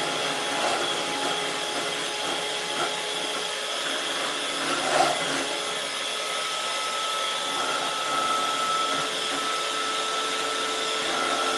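Electric hand mixer running steadily with a whine, its beaters churning through chocolate cake batter in a bowl.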